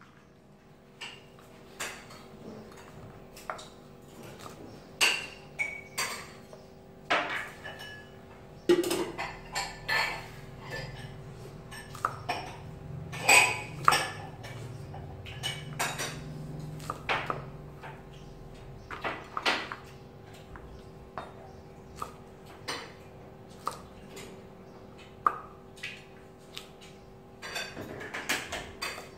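Kitchen knife chopping yardlong beans on a chopping board: irregular sharp knocks of the blade through the beans onto the board, some much louder than others, starting about a second in. A faint steady hum lies underneath.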